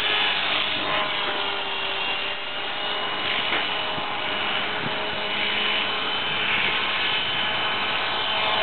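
Align T-Rex 450 SE electric RC helicopter running, its motor, gears and rotor making a steady high whine whose pitch wavers slightly.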